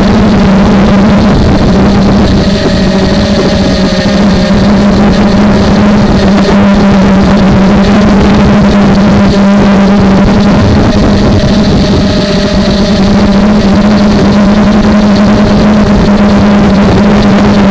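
250-size FPV quadcopter's old brushless motors and propellers running, picked up loud and harsh by the camera mounted on the quad: a steady hum with a constant drone under it that barely changes through the flight.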